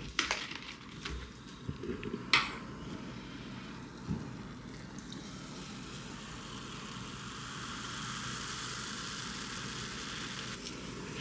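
Cola poured from a bottle into a glass mug, fizzing steadily as it fills. A few knocks and clicks come in the first couple of seconds.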